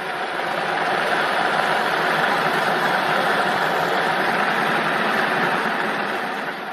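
Inline speed skate wheels rolling on asphalt: a steady rolling rumble that fades in at the start and fades out near the end.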